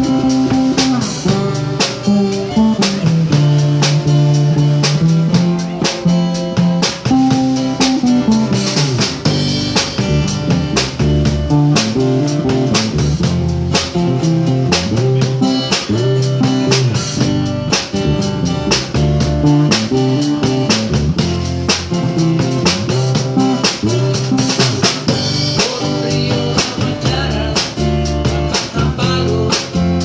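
A small band playing live: acoustic guitars over a drum kit keeping a steady beat.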